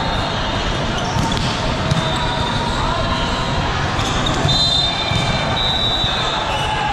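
Hall din of indoor volleyball on many courts: a steady wash of balls being struck and bouncing, mixed with players' voices and echoing in the big hall.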